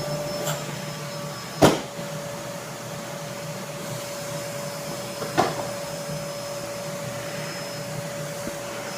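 Vacuum cleaner running steadily with a constant whine. It is interrupted by a sharp knock a little under two seconds in, the loudest sound, and a softer knock a few seconds later.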